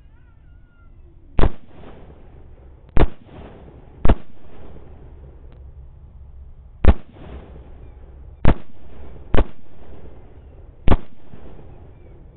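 .22 Nosler rifle firing seven shots in about ten seconds, spaced irregularly one to three seconds apart, each shot trailing off in an echo.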